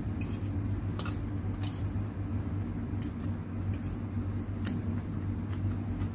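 A fork clicking against a plate a few times as noodles are picked up and eaten, over a steady low hum.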